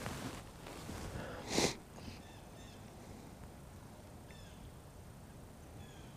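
Faint bird calls: a few short, falling chirps spread over several seconds. A brief hiss of noise comes about a second and a half in.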